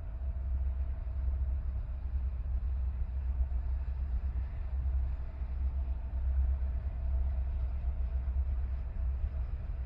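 Low, steady rumble of a departing CN manifest freight train, with a faint steady tone above it.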